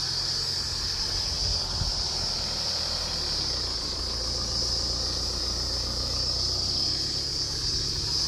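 A loaded delivery truck's engine running steadily as it drives, with a constant high-pitched hiss over it.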